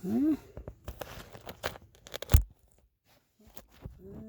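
Handling noise: rustling and scattered clicks, with one sharp knock a little past two seconds in, as the camera is moved about to be propped up.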